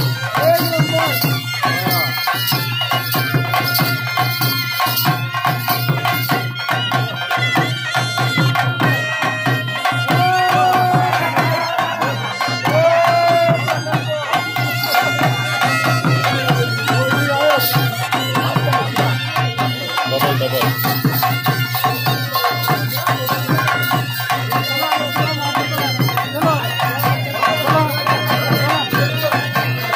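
Live traditional folk music with fast, continuous hand-drum playing.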